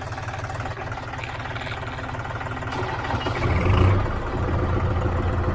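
Kubota ME4500 tractor's diesel engine just started and running at low idle, around 800 rpm. There is a brief surge in loudness about three and a half seconds in, then it runs steadily.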